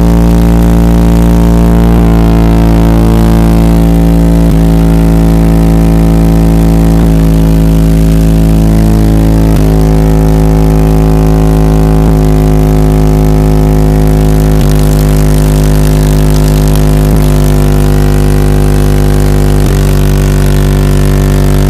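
Twenty-four Alpine Type R 10-inch subwoofers, powered by eight Rockford Fosgate 2500.1 amplifiers, playing bass at very high level, heard from inside the truck's cab. The bass holds steady notes that change about every two and a half seconds.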